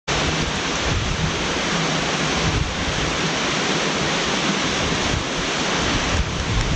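Tall waterfall's steady rush of falling water, with wind rumbling unevenly on the microphone.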